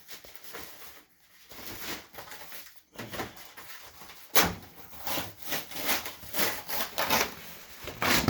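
Metal clanks and rattles of a steel grill rack being handled and fitted inside a pellet grill, with a sharp clank about four seconds in and another near the end.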